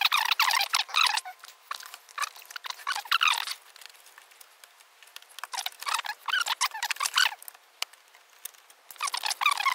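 Flat ribbon cables in an opened Sony DSR-370 camcorder being worked out of their board connectors by hand: small clicks, scratches and squeaky rubbing of cable and plastic, in about four bursts with short pauses between.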